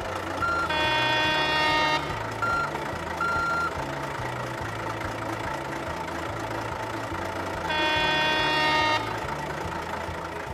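Truck sound effects laid over a toy concrete mixer truck: a steady engine rumble with two horn blasts of about a second each, one a second in and one near the end, and three short beeps in the first four seconds.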